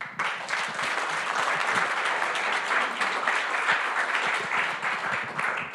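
Audience applauding, starting abruptly and thinning out near the end.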